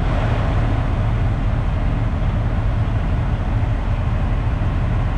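Steady low rumble of a semi-truck's diesel engine and running noise, heard from inside the cab.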